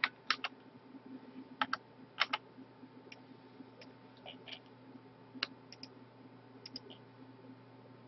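Scattered clicks of a computer keyboard and mouse, single or in quick pairs, a second or so apart, over a faint steady electrical hum.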